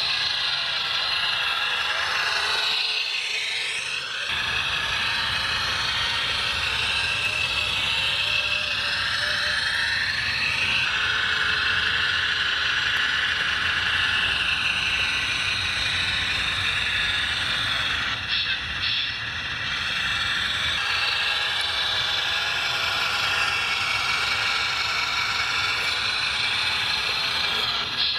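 Electric drive motors and hydraulic pumps of radio-controlled scale construction machines whining, several at once, their pitch rising and falling as the models drive and work. They ease off briefly about three seconds in and again about eighteen seconds in.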